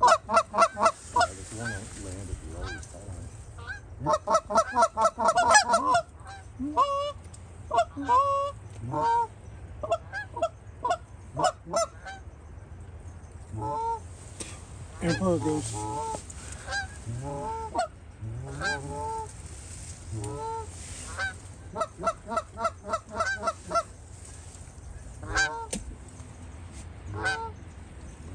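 Geese honking and clucking in short pitched calls, with fast flurries of clucks about four seconds in and again past the twenty-second mark.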